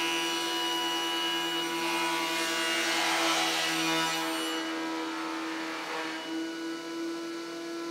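Martin thickness planer running with a steady hum while a glued-up wooden panel feeds through and is planed down to final thickness. The cutting noise swells from about two seconds in and eases off after about four and a half seconds.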